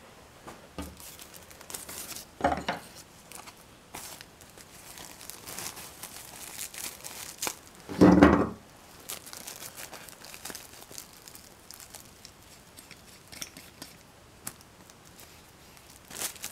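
Crinkling and rustling from hands at work, with scattered small clicks and a louder knock about eight seconds in.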